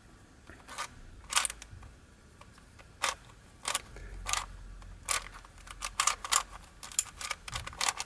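Aluminium Rubik's Cube being turned by hand during a solve: its metal-capped layers give sharp clicks and short clattery bursts at irregular intervals, coming faster in the last few seconds.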